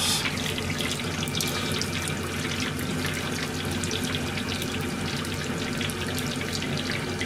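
Hot oil sizzling steadily with a dense patter of fine crackles as food deep-fries.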